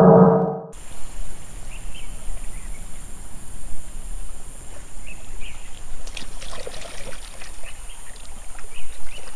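Shallow river water trickling and splashing around a hand rinsing plastic toys, with small irregular splashes. A loud pitched sound cuts off suddenly under a second in.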